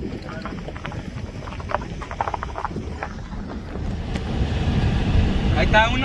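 Vehicle driving on a rough dirt road, heard from inside the cab: a steady low rumble that grows louder in the second half, with scattered knocks and rattles in the first half.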